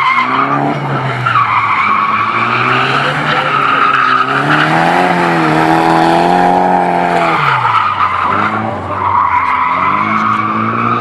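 Drift car's engine held at high revs while the rear tyres squeal and skid as it slides sideways. The engine pitch rises and falls with the throttle and drops sharply about seven and a half seconds in before building again. The tyre squeal comes and goes in stretches.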